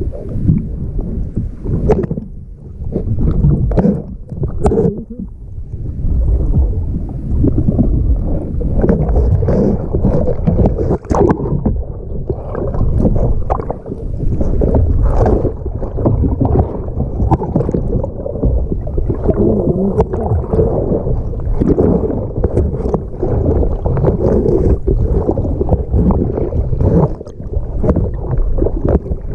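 River water rushing and splashing around a kayak in rough water, with irregular splashes throughout and wind buffeting the microphone.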